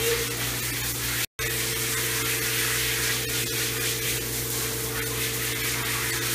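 Water hissing steadily from a hose sprayer onto a wet dog in a grooming tub, over a steady low hum. The sound cuts out for an instant about a second in.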